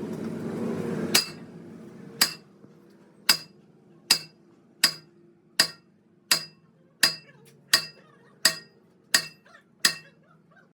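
Hammer striking metal in a steady rhythm: about a dozen sharp, ringing blows, coming a little faster toward the end. A steady background noise drops away just after the first blow.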